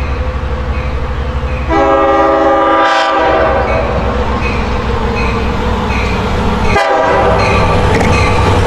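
Metro-North commuter train running past with a steady rumble, sounding its horn: one blast of about a second and a half near two seconds in, then a second, shorter blast near the seven-second mark.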